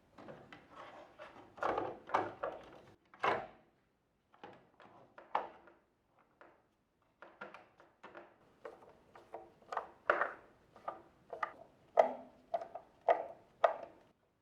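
Plastic parts of a Nespresso capsule coffee machine being handled and fitted together during reassembly: irregular clicks, knocks and brief rubbing.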